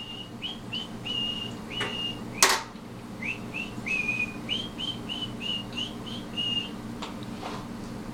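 A person whistling a tune in a run of short, clear high notes, with one sharp clatter about two and a half seconds in.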